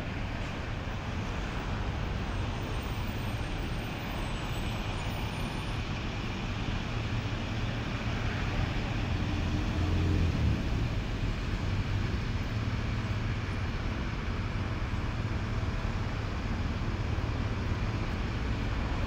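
Steady outdoor rumble of road traffic, swelling a little about ten seconds in as a vehicle passes.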